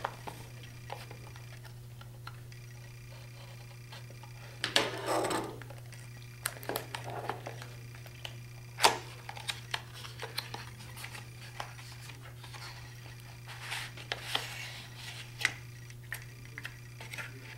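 A small cardboard retail box being slit open with a utility knife and unpacked by hand: scattered clicks, scrapes and cardboard rustling, the longest rustle about five seconds in and a sharp click near nine seconds, over a steady low hum.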